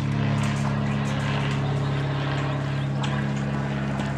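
A motor running steadily at constant speed, an even low hum that does not change in pitch.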